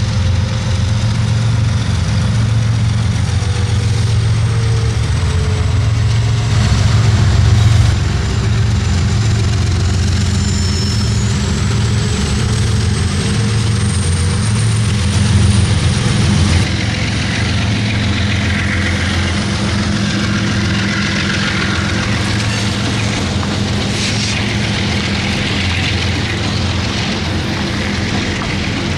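BNSF diesel-electric freight locomotives passing close by, engines running with a deep steady drone and a thin high whine that drops in pitch as they go past.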